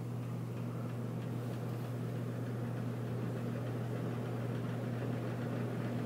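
Beverly Hills Fan Co. Trout ceiling fan running steadily: a low motor hum over a faint, even rush of air from the spinning blades.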